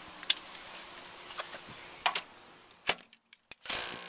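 Sharp clicks and knocks as the impact wrench's socket is handled and set onto a car's wheel nut, with a short burst of noisy rattle near the end.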